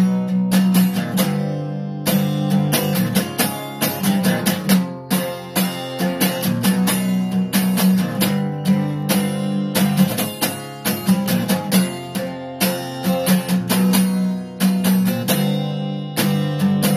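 Solo acoustic guitar strummed in a steady rhythm of repeated chord strokes, without singing.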